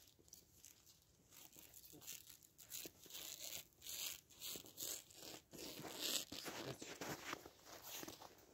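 Plastic stretch wrap film being pulled off its roll, crackling and tearing in irregular bursts that grow louder about three seconds in.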